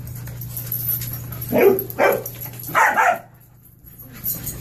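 Puppies barking: three loud barks, about a second and a half, two, and three seconds in, over a steady low hum.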